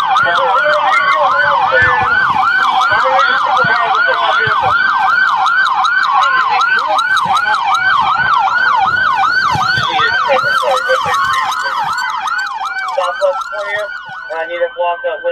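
Police sirens: one in a fast yelp, sweeping up and down about three times a second, and a second in a slow rising and falling wail beneath it. The yelp fades out near the end.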